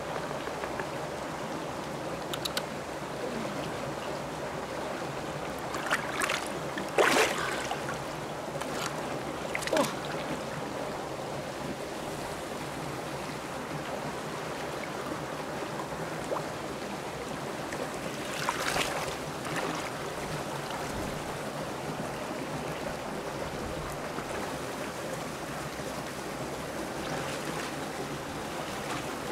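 Shallow river water flowing steadily, with a few splashes in the water, the loudest about seven seconds in and another just before twenty seconds.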